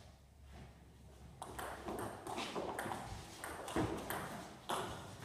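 Table tennis doubles rally: the ball clicking off bats and table in a quick run of hits, about two or three a second, starting about a second and a half in.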